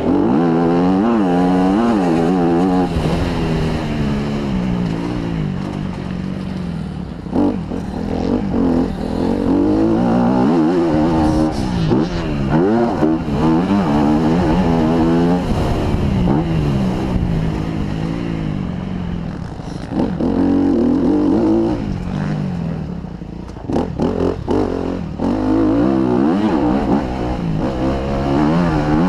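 Honda CRF250R's single-cylinder four-stroke engine revving hard and easing off again and again while being ridden, its pitch climbing in each gear and dropping with each shift or throttle closing. A few short clattering knocks come in the middle stretch.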